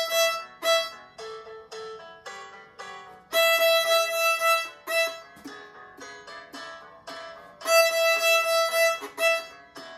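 Violin played with the bow: a long held high note, the open E string, comes back about every four seconds, with shorter repeated notes played between them.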